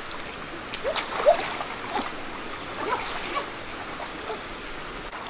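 Shallow stream water splashing and dripping as someone wades and works with hands and a woven basket. There are several small splashes and plinks, with a sharp splash about a second in, over a steady rush of flowing water.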